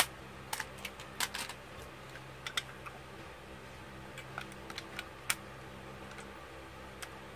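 Scattered light plastic clicks and taps, about a dozen at irregular intervals, as an Infinity Nado spinning top is handled and fitted onto its plastic launcher handle, over a faint steady low hum.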